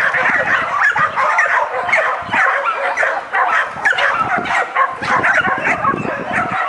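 Dog barking and yipping in rapid short calls, almost without a break.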